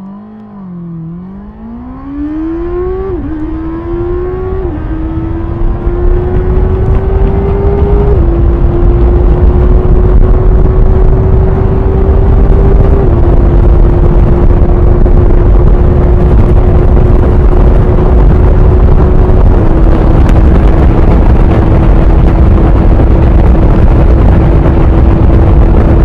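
A Honda CB650R's inline-four engine accelerates hard from a near standstill under full throttle, revving up through the gears. There are five upshifts, each a sudden drop in pitch, and they come further apart as speed climbs. A heavy wind rush on the onboard microphone builds with the speed.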